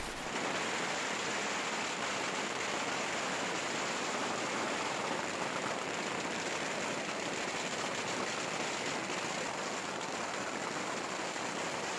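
Strings of firecrackers going off without pause, countless pops merging into a steady, loud, dense crackle.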